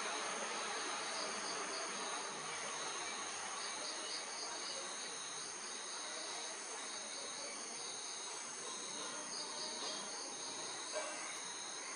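Insects calling steadily outdoors: a continuous high-pitched trill with recurring clusters of rapid chirps over a faint hiss of ambience.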